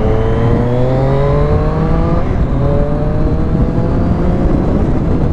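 Triumph Street Triple S 660 three-cylinder engine on its stock exhaust, accelerating: the engine note climbs for about two seconds, breaks briefly for an upshift, then climbs again in the next gear. Wind rush runs underneath.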